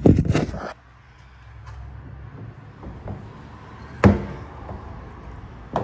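Phone handled and bumped about as it is repositioned, then two sharp knocks, one about four seconds in and one near the end, over a low steady hum.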